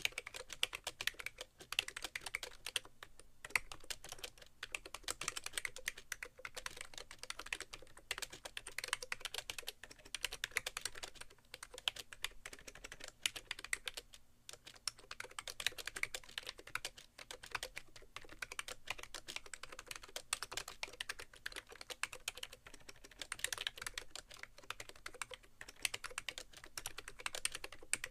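Fast continuous typing on a BTC 5100c (SIIG MiniTouch Plus) mini keyboard with slider-over-rubber-dome keys, its hollow keystrokes sounding against the keyboard tray, with no towel beneath. Brief pauses come about three seconds and fourteen seconds in.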